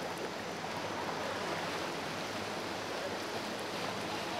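Steady rushing and churning of rough, choppy water stirred up by boat wakes.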